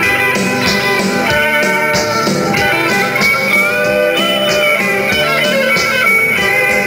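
Recorded song playing an instrumental break, with guitar and a gliding lead melody.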